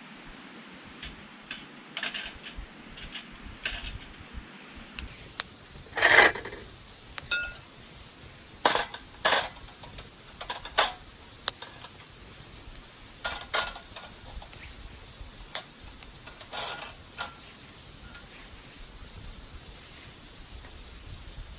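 Thin metal clinking and knocking: about a dozen sharp, irregular knocks, the loudest a few seconds in, some leaving a short metallic ring.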